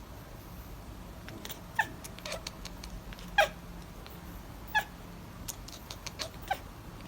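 A cat giving a few short, separate meows, four brief calls spread over several seconds, with some faint clicks and taps between them.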